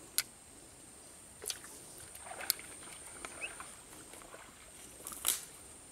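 A soft frog lure being twitched on the water surface for snakehead, giving four short splashes and plops spread out, the loudest about five seconds in. A steady high whine runs underneath.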